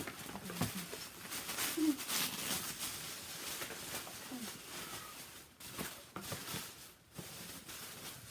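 Paper and packaging rustling and crinkling as a gift box's wrapped contents are pulled open, busiest in the first half, with a few short faint squeaks.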